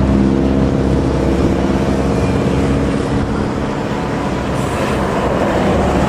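Road traffic passing close: a motorcycle engine hums for the first few seconds. Then an intercity coach bus draws near, its engine and tyre noise growing louder toward the end.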